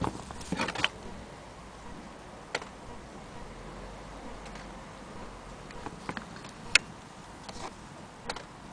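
Handling noise from an antique Willcox & Gibbs sewing machine being tipped and turned by hand: a quick cluster of small metal clicks and knocks near the start, then a few isolated sharp clicks, the loudest about two-thirds of the way through.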